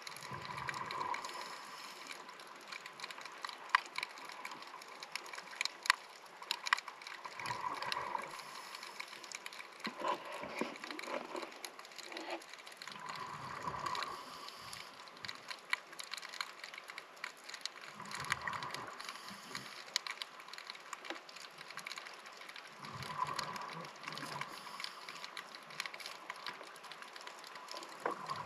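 Scuba regulator exhaust heard underwater: a bubbling, gurgling rush of exhaled air about every five seconds, the diver's breathing rhythm. Between breaths there is a steady background of sharp clicks and crackle.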